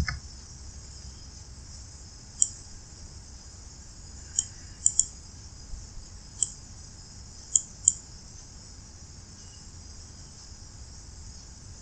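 Computer mouse clicking about seven times, single clicks and quick pairs a fraction of a second apart, over a faint steady hiss.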